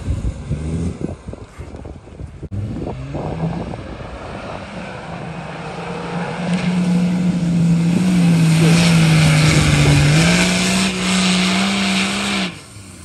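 Off-road 4x4's engine running hard under load as it climbs soft sand dunes, with a steady hiss over it. Its pitch rises about eleven seconds in, then cuts off suddenly near the end.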